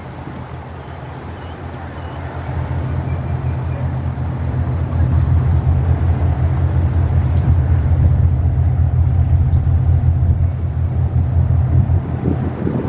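Large sand-carrier ship's diesel engine running as the ship passes close by. It is a low, steady throb that builds over the first few seconds, then holds loud.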